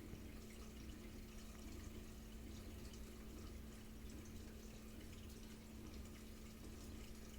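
Faint, steady water noise from a reef aquarium's circulation, with water trickling and dripping through the overflow into the sump. Under it is a low, steady hum from the pump.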